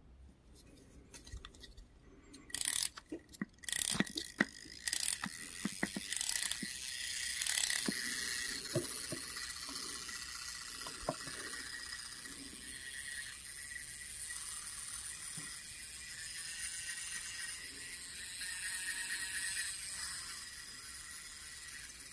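Boulin Strobomeca tachometer: its clockwork spring is wound by the star wheel with a run of ratchet clicks, then the spring-driven clockwork spins the shutter discs with a steady whir.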